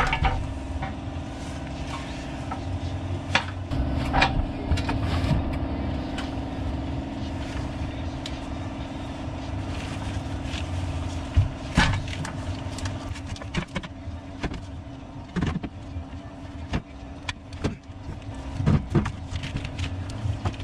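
Irregular metal knocks and clanks as a manual clutch-and-brake pedal assembly is handled and fitted against a bus firewall, over a steady engine-like drone that fades about two-thirds of the way through.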